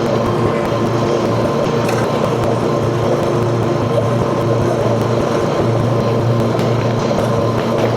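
Engine of a Grasshopper front-mount riding mower running steadily while mowing, an even drone without changes in speed.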